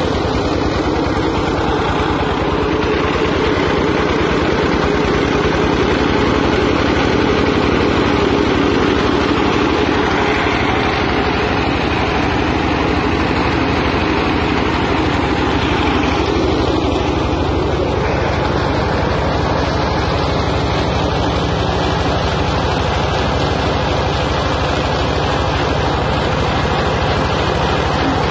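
Peanut-shell grinding mill running steadily under load, driven by a small stationary engine, with ground shells blowing out of the discharge chute.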